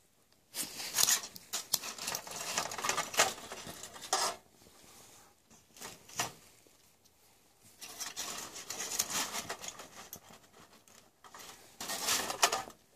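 Foil windscreen crinkling and rustling, with light clinks of a metal pot, as the pot is handled and lifted off a small wax stove. The noise comes in several bouts with short quiet gaps.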